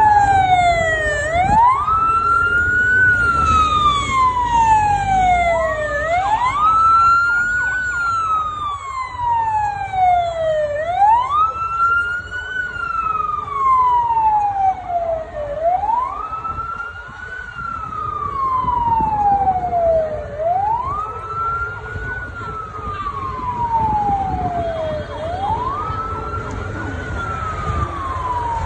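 Siren of the convoy wailing: each cycle rises quickly, then falls slowly, repeating about every five seconds. Under it is a low rumble of SUV engines and traffic.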